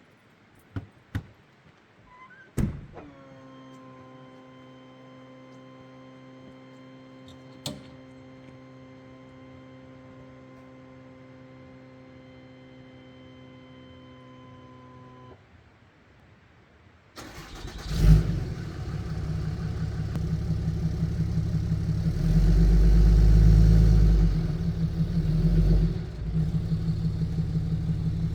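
A door thumps shut, a steady electrical hum runs for about twelve seconds and stops, then a pickup truck's engine cranks and starts about seventeen seconds in and keeps running, rising for a couple of seconds near the middle of that stretch.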